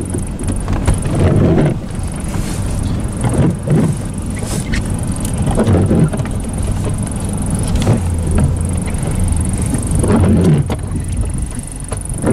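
Plow truck's engine running as it pushes through snow, heard from inside the cab as a steady low hum. Swishing scrapes come every few seconds as brush and snow hit the truck, with a few sharp knocks.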